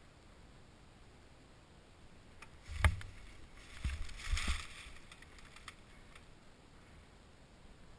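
Boots crunching and rustling through dry leaves on a dirt trail, with one sharp knock about three seconds in. No engine is running.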